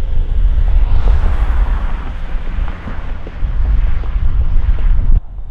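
Wind buffeting the microphone: a heavy, gusting low rumble with a broad hiss over it, which cuts off abruptly near the end.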